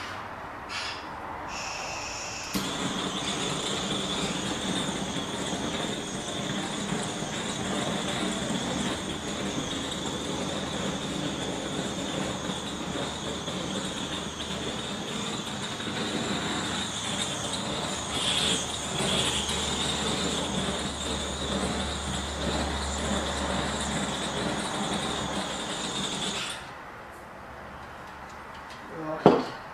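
Handheld butane torch hissing steadily with a high whistle as its flame is passed over wet acrylic paint to pop air bubbles. A few clicks of ignition come first, the flame cuts off suddenly near the end, and a sharp knock follows.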